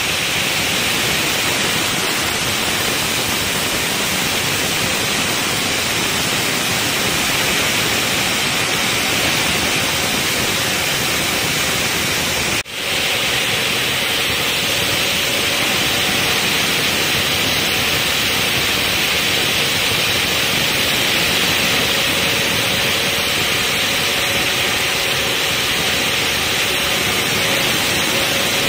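Multi-blade stone slicing saw (12–14 segmented blades on one shaft) cutting granite blocks under a cooling water spray: a loud, steady hiss with the cutting blades and falling water blended together. It drops out for an instant about halfway through.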